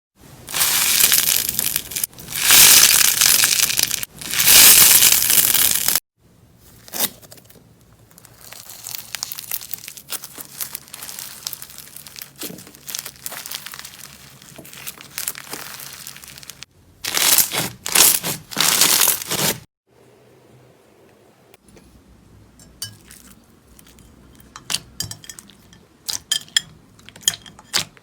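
Slime being squeezed and pressed by hand: loud, dense crunching and crackling in two long spells, with quieter sticky clicks and pops between and after them.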